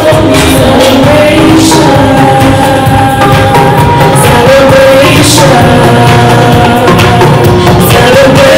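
A woman singing into a microphone over loud, steady amplified backing music.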